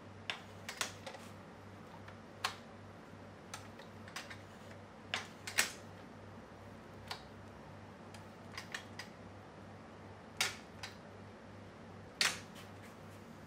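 Scattered metallic clicks and clunks from a SEA-PRO T9.9S outboard's tilt bracket and reverse-lock linkage as the motor is pushed up by hand and let back down, and the gear shift is moved from forward to neutral. The tilt lock has just been adjusted so the motor swings up in forward and neutral. The loudest clunks come about halfway through and near the end, over a faint low hum.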